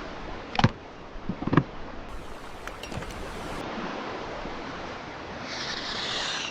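Ocean water noise, a steady wash with a hiss building near the end, broken by two short knocks, one just after half a second and one about a second and a half in.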